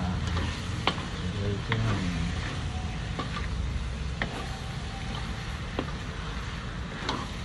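Wooden spatula stirring chicken pieces in a large steel wok, with about six irregular scrapes and knocks of the spatula against the pan over a steady frying sizzle.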